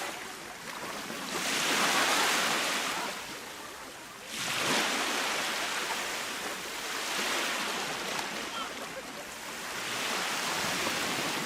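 Baltic Sea waves breaking and washing up the beach, in about four surges that swell and fall back; the loudest come about 2 s and 4.5 s in.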